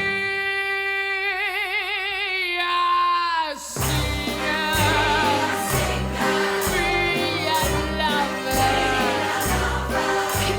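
Show-tune recording: a woman's voice holds one long note with vibrato for about three and a half seconds, then slides off. The band then comes back in with a steady beat and bass.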